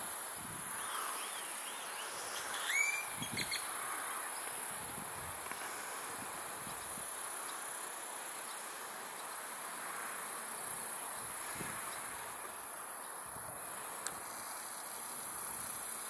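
Steady high-pitched insect trilling, with a short bird call of a few quick curved notes about three seconds in.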